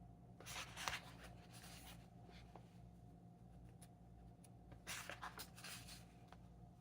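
Pages of a printed book being turned: brief paper rustles, once about half a second in and again about five seconds in, over a faint steady low hum.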